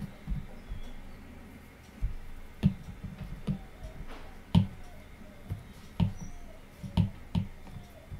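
Stylus tip tapping on a tablet's glass screen: about a dozen irregular short clicks and taps while erasing and working the app's menus.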